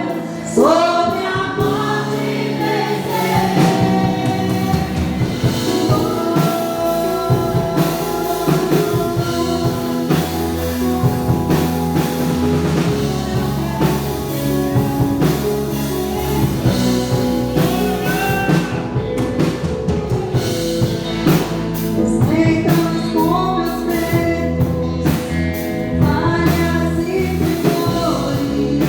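Live Brazilian gospel worship music: voices singing a praise song over a band with bass and a drum kit keeping a steady beat.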